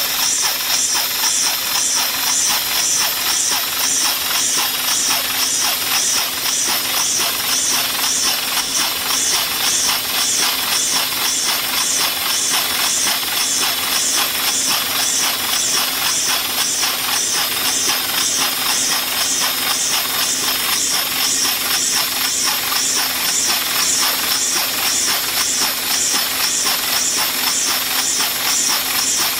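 Homemade steam engine built from hardware-store parts running steadily: a continuous hiss of steam with regular puffs of exhaust in a quick, even rhythm.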